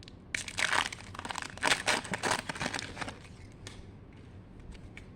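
Wrapper of a baseball trading-card pack being torn open and crinkled by hand. It comes as a run of short rustles and tears that dies down about three seconds in.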